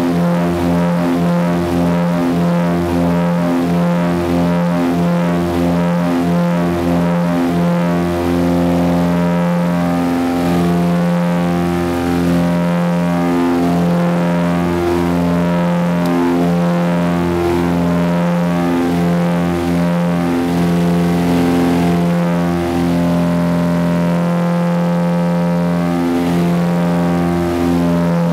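Small propeller plane's engine running at climb power, heard inside the cabin as a loud, steady drone with a regular throbbing pulse.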